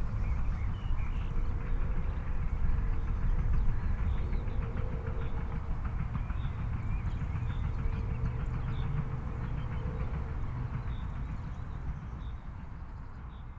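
Outdoor ambience: a steady low rumble with a faint steady hum and scattered small bird chirps above it, fading out near the end.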